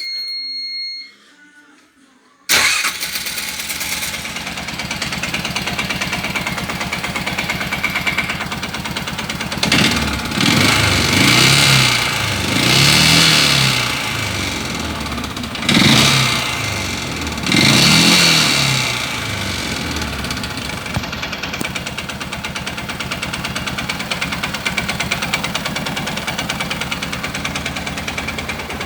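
A short electronic beep, then the engine of a Stels 500GT ATV starts about two and a half seconds in and idles, revved up and back down several times in the middle before settling to idle. It runs with a knock that appeared after hard work towing a trailer up a long climb, and whose cause the owner does not know.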